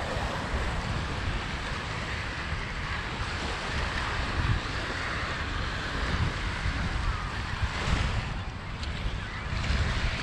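Wind buffeting the microphone in uneven gusts over a steady rush of lake waves.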